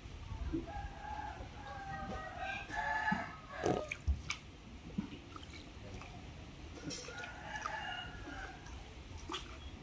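A rooster crowing twice, a long crow about a second in and a shorter one near the end. A few sharp knocks and splashes from a wooden paddle are mixed in.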